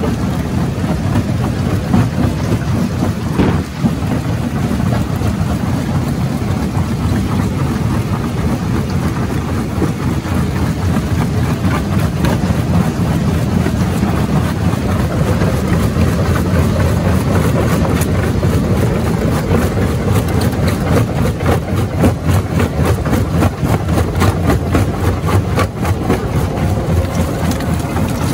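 Mobile jaw crusher running under load: a steady, heavy machine drone, with rocks cracking and clattering as the jaws break them, the cracks coming thick and irregular in the second half.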